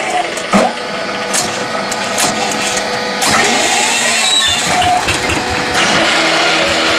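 QMY6-25 mobile hydraulic paving-block machine running, its motors and hydraulics working, with gliding tones in the middle. A sharp loud knock comes about half a second in, and a few lighter knocks follow over the next two seconds.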